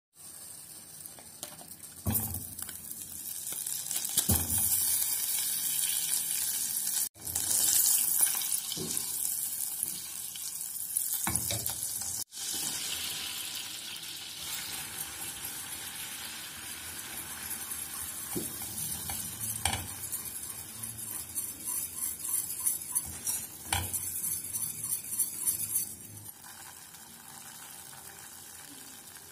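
Fat sizzling and frying in a stainless steel pot, with flour being cooked in it and stirred into a roux. There are a few short knocks of the utensil against the pot, and the sizzle drops off briefly twice and goes quieter near the end.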